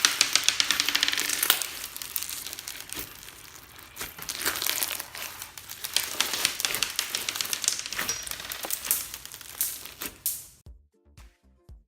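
Clear slime full of beads and floam being squeezed and worked, giving a dense crunchy crackling with many small pops and clicks. About ten and a half seconds in it cuts off and music with a steady beat starts.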